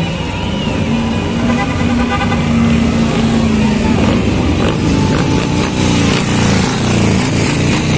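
Harley-Davidson motorcycles riding slowly past, their V-twin engines running, with one steady engine note held for a couple of seconds in the first half and others taking over as more bikes pass.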